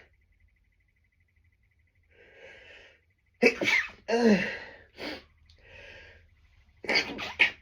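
A person sneezing hard and trying to stifle it: a breath drawn in, then a loud run of sneezes about halfway through, more breathing, and another quick cluster of short stifled sneezes near the end.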